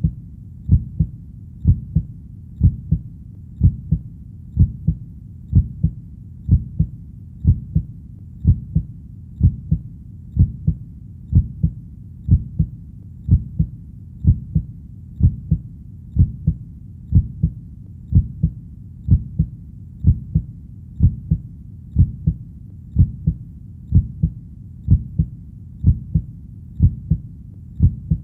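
Slow, steady heartbeat, each beat a low double thump (lub-dub), about one beat a second, over a faint low hum between beats.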